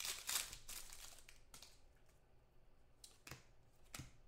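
Clear plastic wrapper of a trading-card pack crinkling in the hands for about a second and a half, then a few sharp clicks as the cards are handled.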